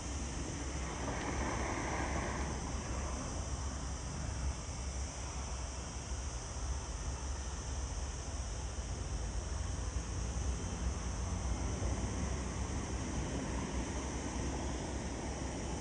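Faint jet noise of a Boeing 737 MAX 8's CFM LEAP-1B engines on final approach, growing slightly in the second half, under steady wind rumble on the microphone and a constant high hiss.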